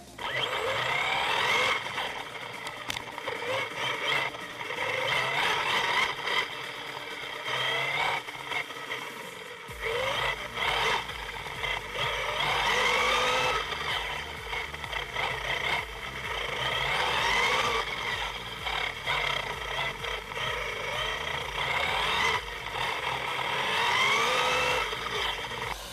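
RC truggy's motor, heard from on board as the car races, whining up in pitch again and again as it accelerates, with short drops in between.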